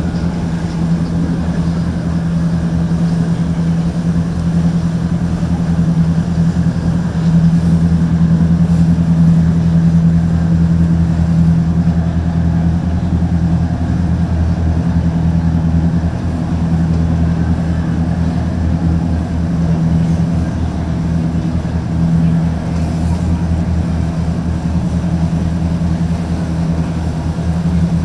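Inboard boat engines running steadily at slow cruising speed, a low even drone that swells and eases slightly.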